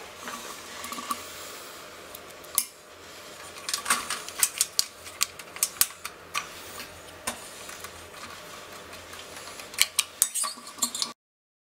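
Scattered sharp metallic clicks and clinks from hands fitting a control unit and its wiring into the stainless steel housing of an FJ 15 mini pasteurizer, over a low steady hum. The sound cuts off abruptly near the end.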